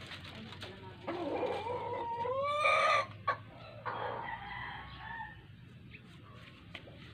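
A rooster crowing once, a long call that rises in pitch and ends at its loudest, followed about a second later by a fainter call.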